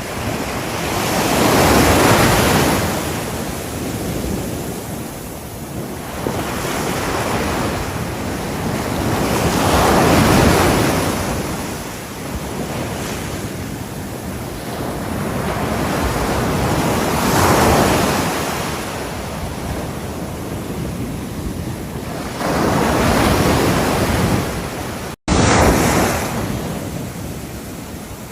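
Ocean waves breaking on a shore, each wash swelling and falling back about every seven or eight seconds. Near the end the sound cuts out for an instant.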